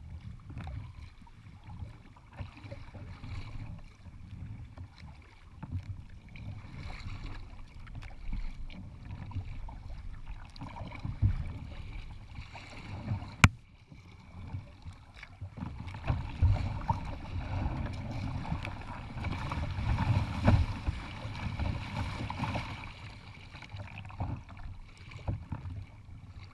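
Wind buffeting the microphone of a kayak-mounted camera over the wash and splash of choppy water and paddle strokes, louder in the second half, with one sharp click about halfway through.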